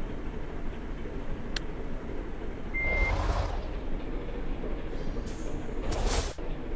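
Heavy road traffic, buses and trucks, passing with a steady low engine rumble. There is one short, high single beep about three seconds in, and a brief sharp hiss of released air, like an air brake, about six seconds in. No telolet horn melody is heard.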